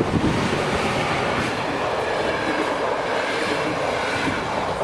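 PKP Intercity passenger coaches of a locomotive-hauled train rolling over a level crossing, a steady rumble and clatter of wheels on the rails.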